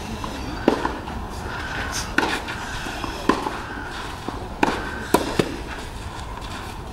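Tennis rally: a ball being struck back and forth by rackets and bouncing on the court, about half a dozen sharp pops roughly a second apart, over a low murmur from the crowd.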